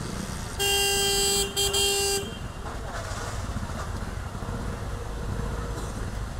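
A vehicle horn honking: one long blast of a single buzzy tone, a brief break, then a shorter second blast, over a low traffic rumble.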